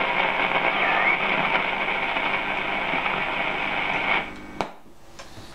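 Hiss and static from a Lemouzy MYA valve radio's loudspeaker as it is tuned between stations, with a brief rising tuning whistle about a second in. About four seconds in the hiss cuts off and a single click follows.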